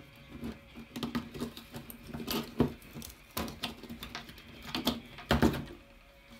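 Irregular clicks, scrapes and knocks of a small hand tool and the plastic suspension parts of a Traxxas Revo RC truck being worked apart on a wooden workbench, the loudest knocks a little after five seconds in.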